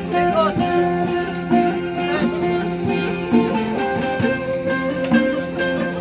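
Live plucked-string music from a long-necked Bornean boat lute played with another stringed instrument: a repeating melody of plucked notes, with a few sliding notes.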